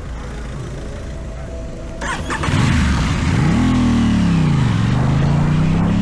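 Aprilia Tuono 660's parallel-twin engine through a Teen Top aftermarket exhaust under a test ride. It runs low and steady, then about two seconds in gets suddenly louder as the throttle opens. The note rises, drops back, then climbs steadily as the bike accelerates.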